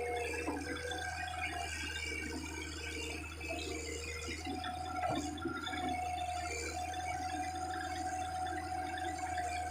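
Hydraulic excavator at work: engine running steadily under a low hum, with wavering whining tones that come and go and some scattered knocks.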